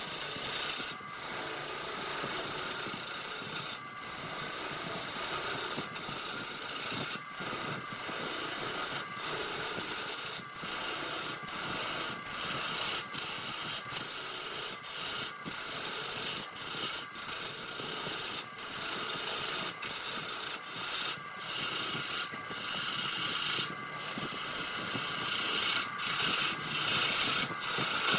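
A tool cutting or scraping spinning wood on a wood lathe, a continuous rasping hiss broken by brief gaps as the tool lifts off between strokes.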